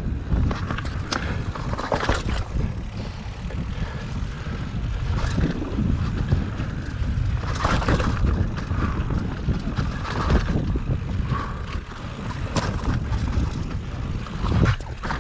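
Mountain bike riding down dirt singletrack: wind rushing over the microphone and tyres rolling on dirt, with the bike rattling and knocking repeatedly over the trail.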